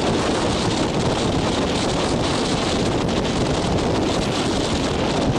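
Strong wind buffeting the microphone, steady and loud, over the rush of breaking surf.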